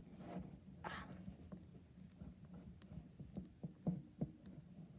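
Spatula stirring glue and shaving cream in a bowl: faint, irregular soft taps and clicks.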